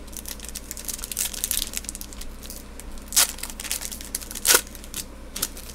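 Foil wrapper of a 2020 Panini Score football card pack crinkling and being torn open, with two louder crackles past the middle.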